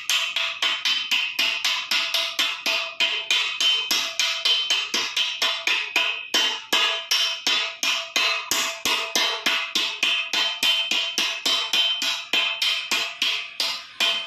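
Metal hammer beating a thin steel sleeve down into the end of a steel pipe, rapid even blows about four a second, each with a metallic ring. The blows pause briefly about six seconds in.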